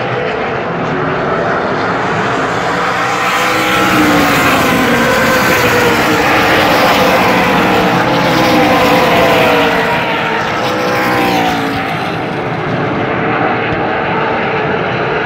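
A pack of Super Late Model race cars with V8 engines passing the grandstand. The sound of several engines swells to its loudest in the middle, their pitches sliding up and down against each other, then eases off near the end as the cars move away.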